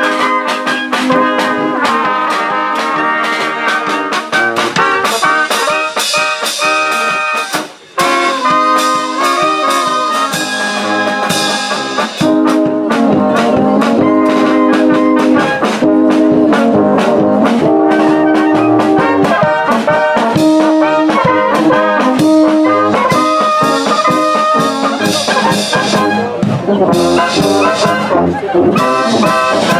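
Brass band music with trumpets and trombones, a Moravian dechovka tune, playing continuously; it breaks off for a moment about eight seconds in.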